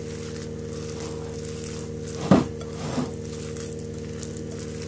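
Hand squishing and kneading a raw minced-chicken, bread and egg mixture in a bowl, over a steady low hum. A short louder sound comes about two seconds in, and a smaller one a little after.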